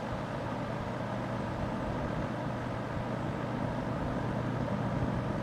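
Vintage 20-inch Superlectric box fan running on its low speed: a steady whir of moving air with a low motor hum.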